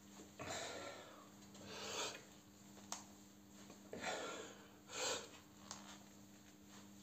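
Hard, forceful breaths of a man straining to bend a steel bolt with his hands: four sharp breaths about a second or two apart, with a brief click near three seconds and a steady low hum underneath.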